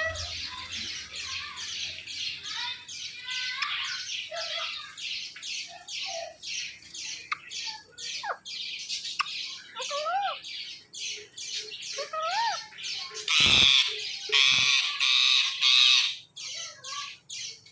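Indian ringneck parakeet squawking in a fast, steady run of harsh calls, about three a second, with a few rising-and-falling whistled notes mixed in. There is a louder burst of squawks near the end.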